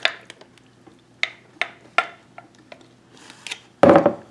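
A spoon clinking against a glass measuring cup and a plastic funnel while scooping thick, jellied beef bone broth: a run of separate light clicks, then a louder scrape near the end.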